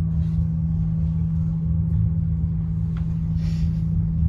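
Steady low rumble of a moving vehicle with a constant low hum. There is a faint click about three seconds in and a short hiss just after.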